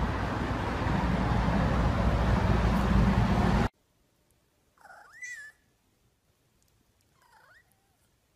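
Music plays and cuts off suddenly, then a cat meows twice: one call with a rising-then-falling pitch, then a shorter, softer one.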